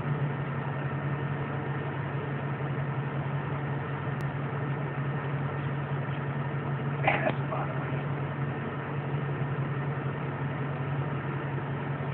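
Vehicle engine idling steadily with a low hum, heard from inside the cab. A short higher sound breaks in about seven seconds in.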